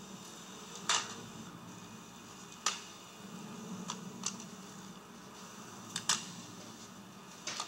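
Irregular sharp clicks, about seven in all, some in close pairs, over a faint low hum in a small room.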